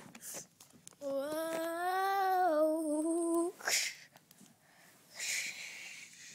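A child's voice holds one long hummed note for about two and a half seconds, rising slightly in pitch and then easing back down. Two short breathy hisses follow.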